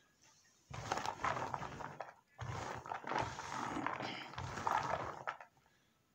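Wet hands churning and rubbing loose fresh-cut corn kernels in a plastic bowl, a grainy rustling rattle in two bouts, a short one and then a longer one of about three seconds, as the corn silk is picked out of the kernels.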